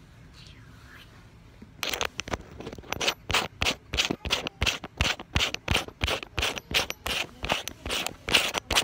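Fingers scratching and rubbing on the camera right at its microphone, in quick repeated strokes about three a second, starting about two seconds in.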